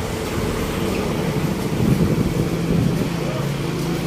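A motor engine running steadily: a low hum with rumble, the hum settling into an even pitch a little over halfway through.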